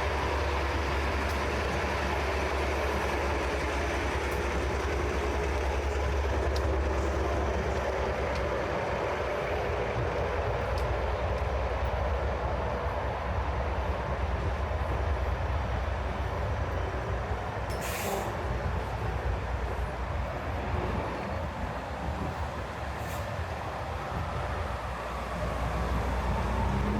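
City street noise with a steady low rumble of vehicles, heaviest for the first several seconds. A single sharp click comes partway through.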